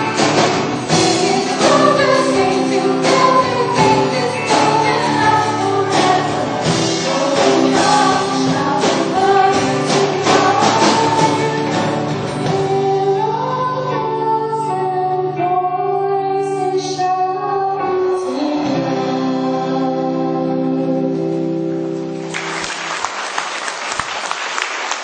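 A large group of school pupils singing with accompaniment over a steady beat; about halfway through the beat drops out and the voices hold long final chords. Applause breaks out near the end.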